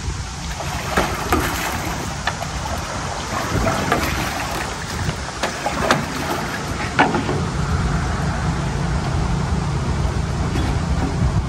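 An engine idling as a low steady rumble that grows a little stronger in the second half, with scattered sharp clicks and knocks from the boat, trailer and winch gear while a pontoon boat is being loaded onto its trailer; the sharpest knock comes about seven seconds in.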